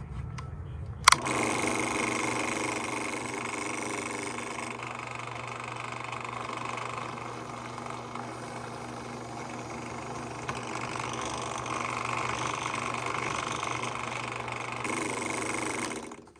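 Drill press switched on about a second in, its electric motor running steadily as it drills a lanyard hole through the pocket knife, then cut off near the end.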